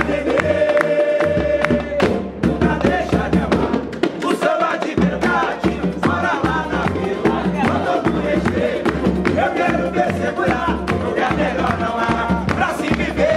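Roda de samba: men singing a samba together in chorus over steel surdo drums, a small drum, pandeiros, a plucked string instrument and hand clapping. The deep surdo beat drops out briefly about four and a half seconds in, then comes back.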